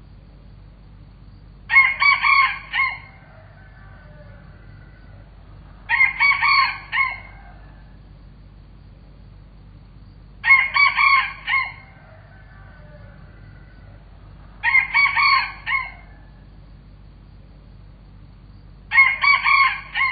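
A rooster crowing five times, about once every four seconds; each crow lasts a little over a second and comes in several short bursts.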